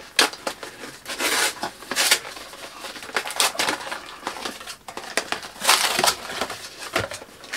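Cardboard parcel packaging being torn and ripped open by hand: a run of irregular tearing, crushing and crinkling noises with a few sharp rips.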